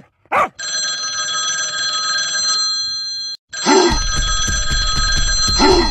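Telephone ringing: a steady multi-pitched ring for about three seconds, a brief break, then ringing again for about three seconds. Two short voice-like sounds come over the second ring.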